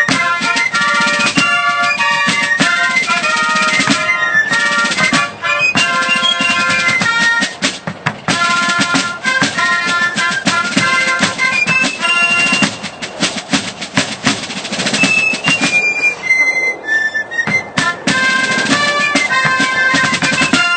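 Fife and drum corps playing a march: shrill wooden fifes and bugles carry the melody over rope-tension snare drums and a bass drum.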